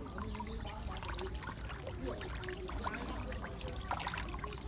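Water splashing and sloshing as a dense mass of fish churns at the pond surface, a steady run of many small splashes over a low rumble.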